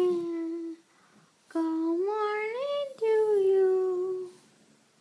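A person singing slow, drawn-out notes of a good-morning song. A held note ends about a second in, a note rises in pitch around two seconds in, then a long note falls slowly before stopping near four seconds.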